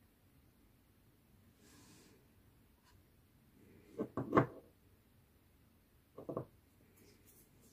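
Small knocks of objects being handled and set down on a hard surface: a tight cluster of three or four about four seconds in, the loudest, and a shorter pair about two seconds later.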